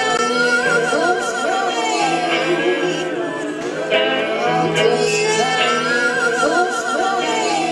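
Live band music: a singer holding long wavering notes over electric guitar, in two sung phrases.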